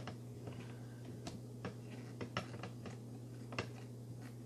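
Small screwdriver and needle-nose pliers ticking against a tiny screw and nut as the nut is snugged down: a few light, irregular clicks over a steady low hum.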